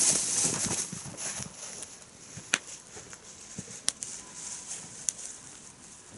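Wood campfire crackling: a loud hissing rush in the first second or so that dies down, then three sharp pops about a second and a half apart.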